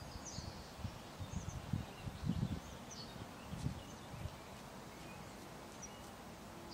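Faint, scattered short high chirps of small songbirds, with irregular low rumbles during the first four seconds.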